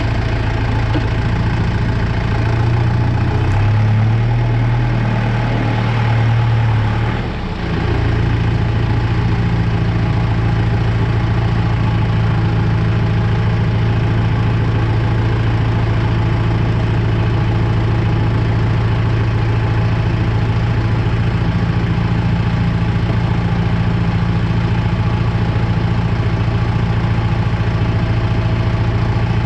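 Kubota M6040 tractor's four-cylinder diesel engine running steadily at low speed. Its note rises slightly a few seconds in, dips briefly about seven seconds in, then holds even.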